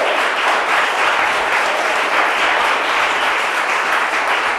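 Audience applauding steadily at the end of a talk, a dense run of many hands clapping.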